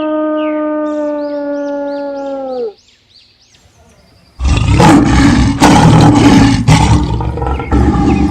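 Animal sound effects: a long, steady howl that sags slightly in pitch and stops, then after a short pause a loud, rough roar that runs on in several surges.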